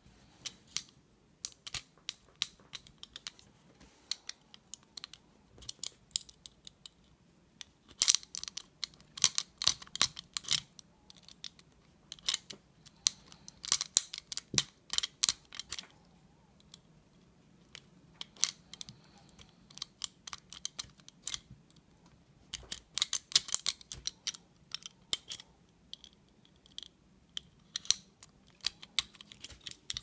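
A lock pick and tension wrench working in the keyway of a cheap stainless steel disc padlock as the pick is pushed and pulled under tension, giving irregular clusters of small metallic clicks and scratches with short pauses between.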